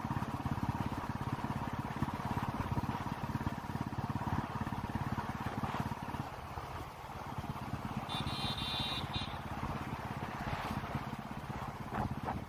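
Motorcycle engine running while riding, with fast, steady low pulsing; it eases off briefly around the middle, then picks up again. A short high-pitched tone sounds for about a second about two-thirds of the way through.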